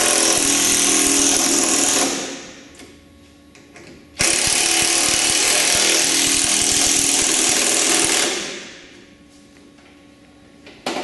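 Cordless drill driving and tightening bolts into T-nuts that fasten a ski rack to a snowmobile's tunnel. It runs in two bursts: the first stops about two seconds in, the second starts near four seconds and runs about four seconds.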